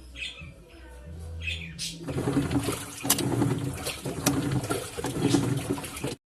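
LG Turbo Drum top-load washing machine running in its wash cycle: a low motor hum, then from about two seconds in the louder, irregular churning and pulsing of the agitating drum and water. This is a test run after the clutch-lever screw was recalibrated so that only the brake releases during washing. The sound cuts off abruptly near the end.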